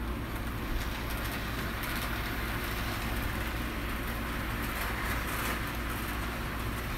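Hornby OO-gauge A4 Silver Link model locomotive and its coaches running steadily along the layout track: a continuous even whirr of the small electric motor and wheels on the rails, with a faint low hum under it.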